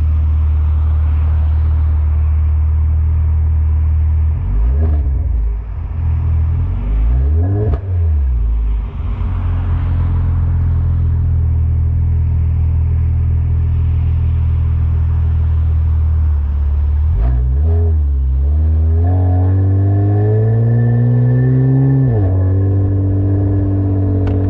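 Kia Stinger engine through a custom Y-pipe exhaust, idling with a deep drone and then revved: quick rises and falls in pitch about five and eight seconds in and again around seventeen seconds, then a longer climbing rev that drops off sharply near the end.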